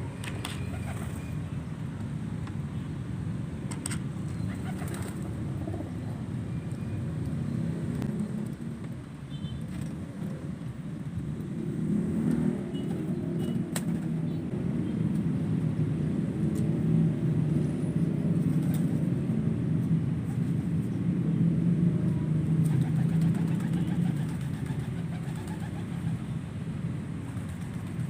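Domestic pigeons cooing, with some wing flaps and light clicks, over a low steady rumble like vehicle noise that grows louder about halfway through.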